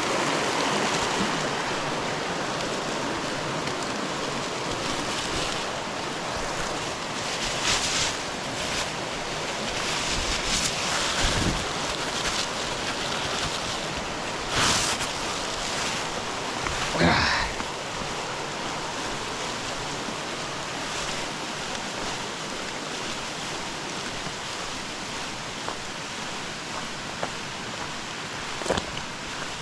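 Rushing water of a mountain stream swollen by a torrential downpour, a steady rush with a few brief knocks and scuffs scattered through it.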